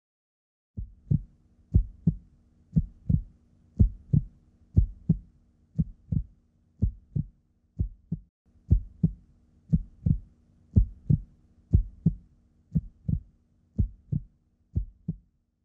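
Heartbeat, a steady double thump (lub-dub) about once a second, starting about a second in, over a faint low hum.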